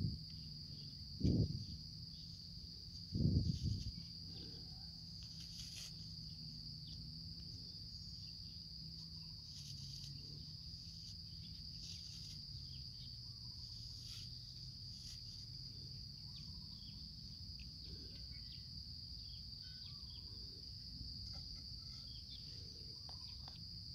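Insects chirring in one steady, unbroken high note over a faint low hum. Two soft thumps come in the first few seconds, and small light clicks follow from hands handling a plastic lid and plant.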